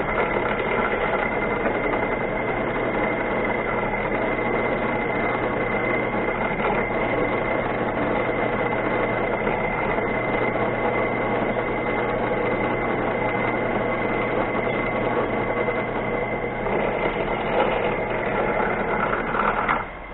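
Small machine tool's electric motor running steadily with a constant high whine while a drill bit bores a hole through a steel part with cutting oil; it stops near the end.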